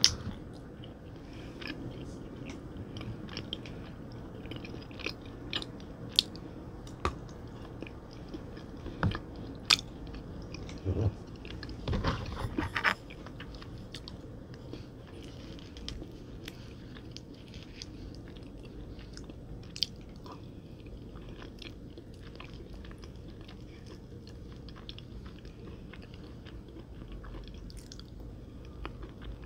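Close-miked eating sounds: sharp bites and crunches, with a loud cluster of crunching about 12 to 13 seconds in, then quieter soft chewing.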